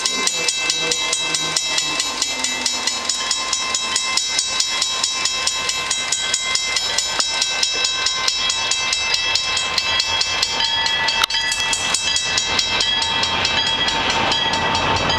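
Level-crossing warning bell ringing in a fast, steady beat. From about ten seconds in, an approaching freight train led by CP SD40-2 diesel locomotives rises underneath it.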